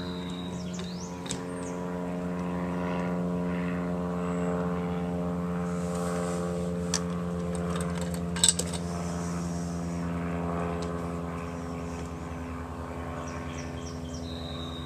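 A steady engine drone at an even pitch, swelling slightly and easing off in the second half, with a few small clicks and one sharp click about eight and a half seconds in.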